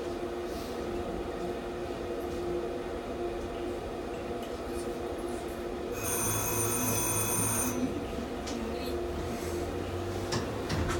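Tram running with a steady electrical hum. About six seconds in, its electric bell rings once for about a second and a half.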